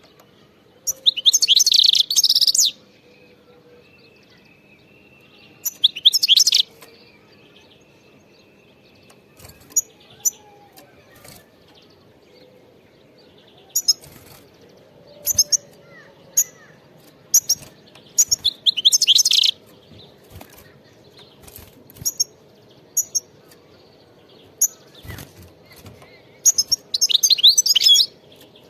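European goldfinch singing in several short bursts of rapid, high twittering, with single sharp call notes scattered between the bursts.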